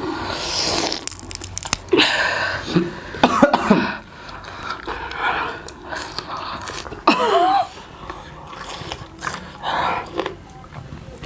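Coughing, sharp breaths and short pained voice sounds, with chewing in between, from people eating food made fiercely hot with chilli.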